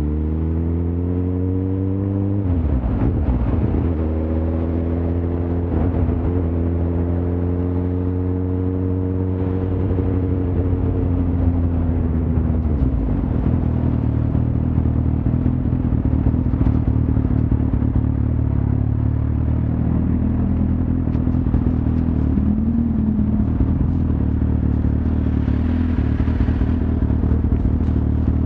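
Suzuki GSX-R1000's inline-four engine under way: it pulls up in pitch, drops sharply at a gear change about two and a half seconds in, climbs again and holds a steady note, then falls off around twelve seconds and runs on at a lower steady pitch.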